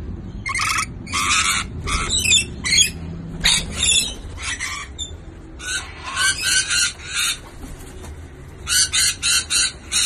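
Parrots screeching: harsh, rasping calls in short bursts, ending in a quick run of about five short screeches.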